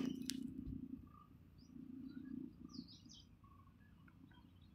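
Faint birds chirping, with a sharp click just after the start and a low hum fading out over the first second.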